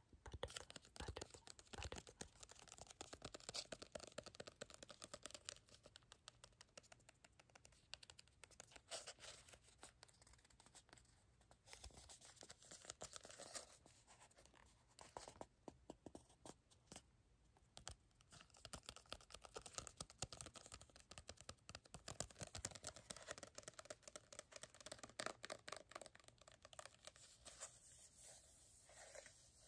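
Fingernails tapping and scratching quickly on a small cardboard box, in dense flurries of light clicks with a short pause about two-thirds of the way through.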